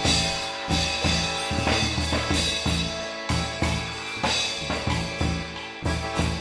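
Instrumental music: a steady drum beat, roughly one stroke a second, under sustained instrument tones, in an instrumental break of a festa junina quadrilha song.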